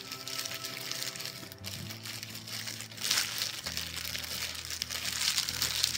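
Plastic sandwich bag crinkling and rustling over a hand as it rubs spices into a raw beef roast, louder in the second half.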